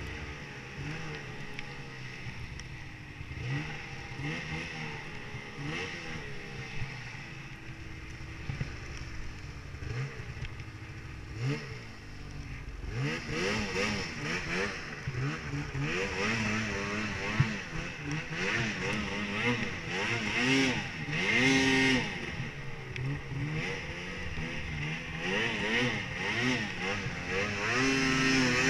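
2017 Arctic Cat Mountain Cat snowmobile's two-stroke engine, revving up and down repeatedly while riding through deep powder. It is softer at first, then gets louder about halfway through, with quicker, higher revs.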